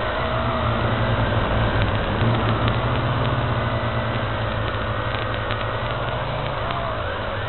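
A drone's electric motors and propellers whining steadily, picked up by the drone's own onboard camera, with the pitch drifting up and down as the motors change speed. It gets a little louder about two seconds in.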